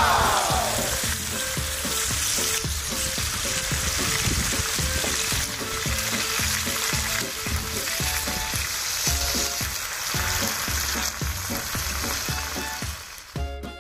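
Pork belly sizzling steadily as it fries in its own fat on a cast-iron pot-lid griddle (sotttukkeong) over a fire. The sizzle drops away near the end.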